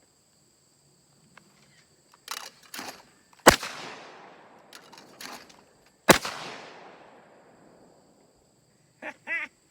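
Two shotgun shots from a Browning GTI over/under, about two and a half seconds apart, each trailing off in a long echo.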